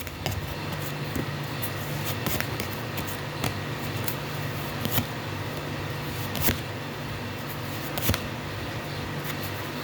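Tarot cards being handled: scattered light clicks and taps over a steady low hum.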